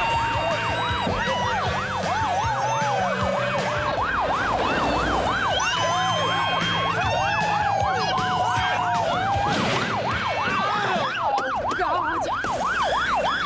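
Ambulance siren on a fast yelp, its pitch rising and falling about three times a second, with a second, slower wailing siren and a vehicle engine running underneath. The yelp cuts off near the end.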